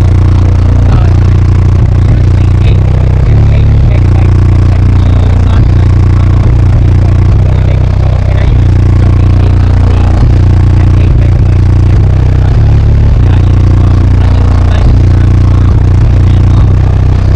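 Four 18-inch MMATS Juggernaut subwoofers in a 4th-order bandpass enclosure playing deep bass notes at very high volume, the low tones stepping from note to note, with the vehicle's panels buzzing and rattling over it.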